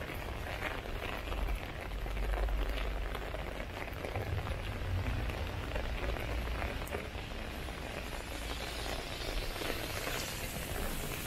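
Rain falling on a wet street, an even patter over a steady low rumble. Near the end a hiss grows louder.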